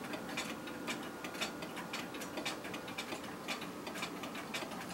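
Clock ticking steadily, a few ticks a second.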